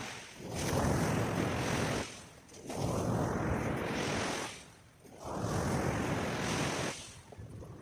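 Surf washing on the shore in three swells about two and a half seconds apart, with wind on the microphone.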